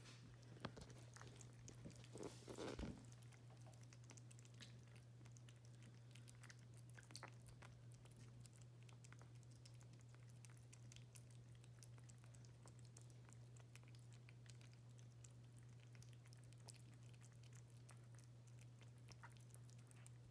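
Kittens eating wet cat food from bowls: faint, quick lapping and chewing clicks, a little louder for a moment about two seconds in, over a steady low hum.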